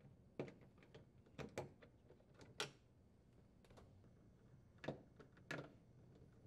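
Faint, scattered clicks and taps of a nut driver and small metal screws as the screws holding a refrigerator control panel are backed out and handled, about six sharp clicks with the loudest about two and a half seconds in.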